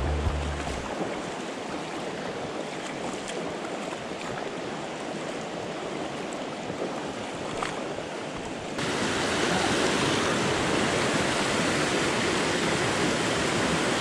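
Water rushing over the stones of a shallow, rocky small river, as a steady even rush. It gets louder about two-thirds of the way through and stays that way.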